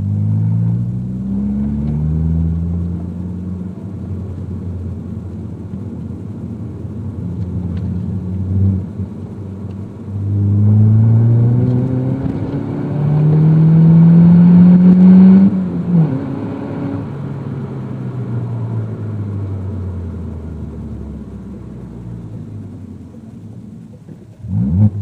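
Peugeot 208 with a Supersprint full sport exhaust, heard from inside the cabin: the engine pulls up through a couple of gear changes, holds steady, then accelerates hard with rising pitch until it cuts off suddenly about fifteen seconds in. It then slows with a long falling pitch, with a short rev near the end.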